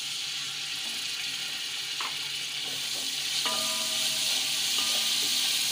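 Whole spices and garlic-ginger paste sizzling in hot oil in a metal pot, stirred with a spatula. The sizzle grows louder about halfway through as a little water goes into the hot oil.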